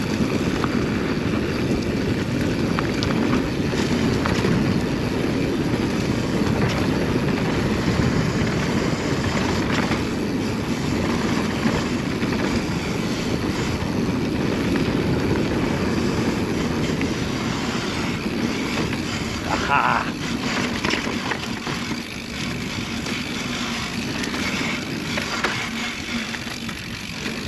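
Mountain bike rolling fast downhill on dirt singletrack: a steady rush of wind on the handlebar-mounted camera's microphone, mixed with tyre noise and the bike's rattle over bumps.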